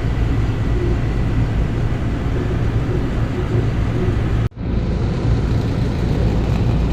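Carrier rooftop AC unit running, its compressor and condenser fan making a steady low hum and rush, freshly restarted after a clogged filter drier was replaced and showing normal head and suction pressures. The sound cuts out for a moment about four and a half seconds in, then resumes.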